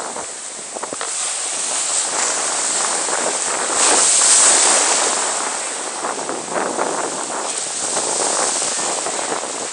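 Ocean surf: waves breaking and washing through the shallows as a steady rush, swelling loudest as a wave breaks about four seconds in.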